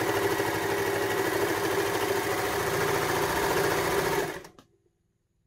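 Baby Lock Victory overlocker running steadily at sewing speed, stitching fabric with a fast, even rhythm; it stops about four seconds in.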